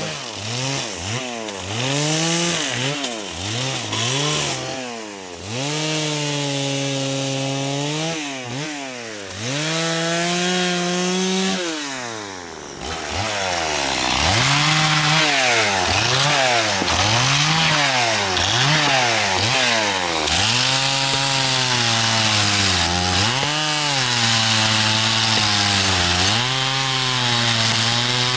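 Small Yamaha two-stroke outboard motor running, its revs swinging up and down again and again. About halfway through it gets louder and holds higher revs for longer stretches, still dipping now and then.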